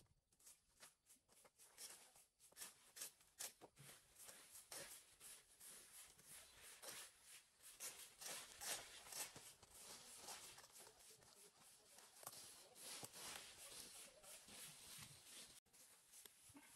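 Faint, quick repeated scraping and rustling of a rake and a broom working through dry leaves and cut grass, several strokes a second.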